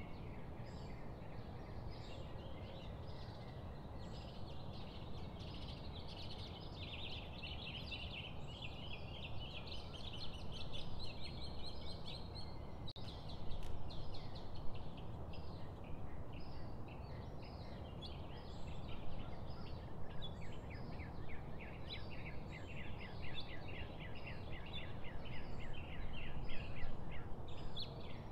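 Many birds chirping in rapid, overlapping runs of short high notes, over a steady low rumble of background noise.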